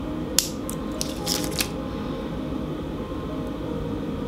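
A sharp click about half a second in, then a few short crisp clicks and scrapes over the next second: kitchen utensils being handled while cutting out cookie dough. A steady low hum runs underneath.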